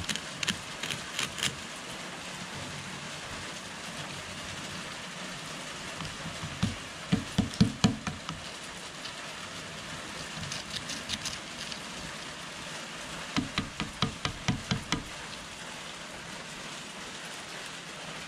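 A steel pick scraping and picking at the thick rust crust on the iron of a dug-up Civil War Burnside carbine, in short bursts of quick clicks and scrapes several times over a steady hiss.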